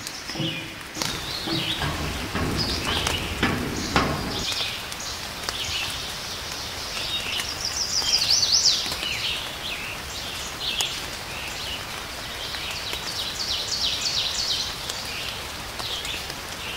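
Small songbirds chirping and calling repeatedly, with a quick run of rising notes about eight seconds in. Low rustling and clicks sit underneath for the first four seconds.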